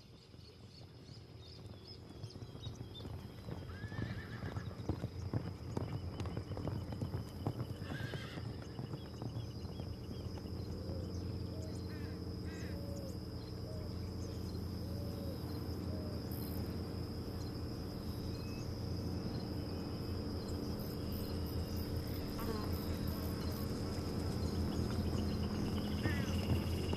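Horses neighing and hooves clopping, fading in over the first few seconds, with a steady high-pitched drone running underneath.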